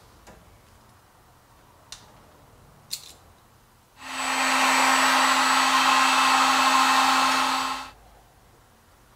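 Small electric heat gun running for about four seconds on a wire splice: a steady blowing rush with a low hum, starting and cutting off abruptly. Two light clicks come before it.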